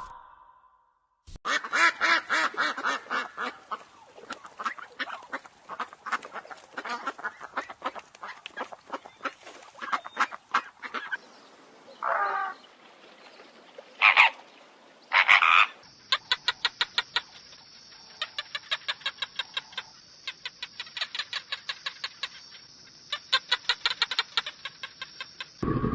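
Ducks quacking in long rapid runs of short calls, with a few longer separate calls around the middle.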